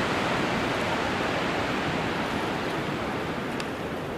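Rushing mountain river tumbling over rocks: a steady rush of white water that slowly grows fainter.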